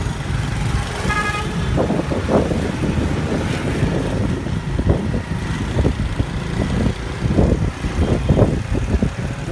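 Road traffic heard while riding a motorbike through city streets: a steady low rumble of engine and wind noise, with a short vehicle horn toot about a second in.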